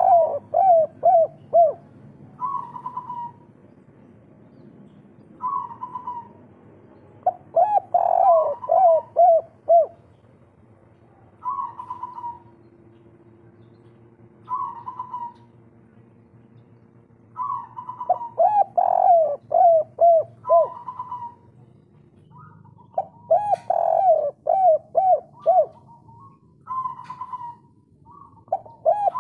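Spotted dove cooing over and over. Single higher coos alternate with quick runs of about five lower, bubbling notes, one phrase every few seconds.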